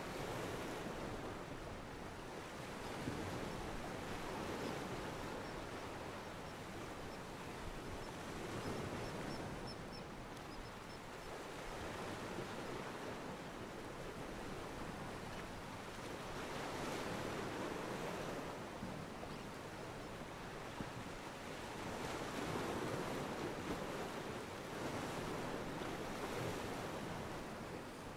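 Stock ocean-at-a-pier sound effect: water washing against a pier in a steady wash that swells and eases every few seconds.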